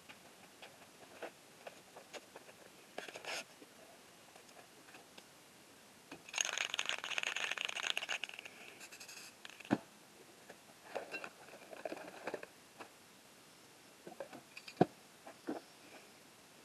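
Hands handling plastic packaging and painting materials on a work table: scattered light clicks and taps, a few seconds of plastic crinkling about six seconds in, and two sharp knocks later on.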